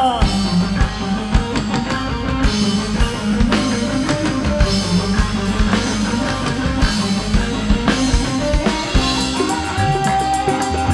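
Live dangdut band playing an instrumental passage with drum kit, percussion, bass and guitar in a steady beat. A held melody note comes in about ten seconds in.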